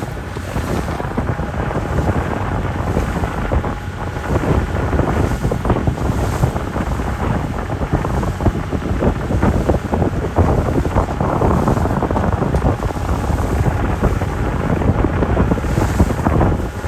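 Heavy wind buffeting the microphone aboard a speedboat, a steady rushing noise with the boat's run over the water beneath it.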